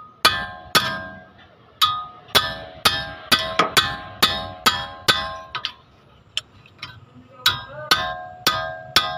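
Repeated sharp metal-on-metal blows, about two a second with a short pause partway through, each followed by a brief bell-like ring from a steel combination wrench on a tight steering tie-rod end nut, struck to break the nut loose.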